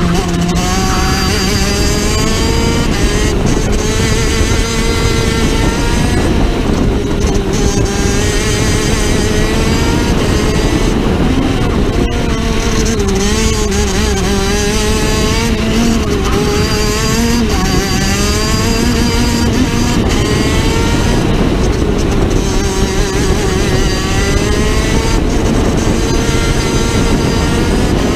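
Vortex 125cc two-stroke shifter kart engine running hard on track, its pitch climbing and dropping over and over as the kart accelerates, shifts gears and slows for corners.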